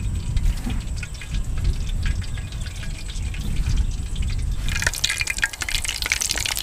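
Low rumble with faint crumbly rustling as breadcrumbs are pressed onto chicken drumsticks by hand. About five seconds in it gives way to breaded drumsticks sizzling and crackling as they deep-fry in hot oil.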